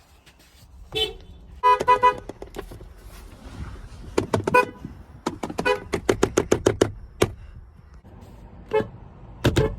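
Car horn sounding in short toots: single taps, a quick group of three, then a rapid run of about ten fast taps in the middle, and a few more toots near the end. Each toot carries two close tones.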